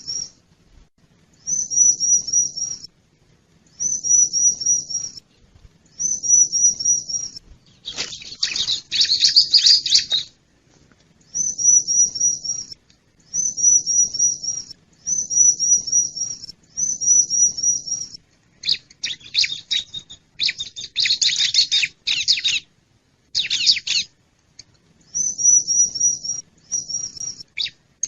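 Bar-winged prinia (ciblek) song: short phrases of rapid, high, slightly falling notes, repeated about every two seconds. The phrases are broken up several times by longer bursts of busy chattering.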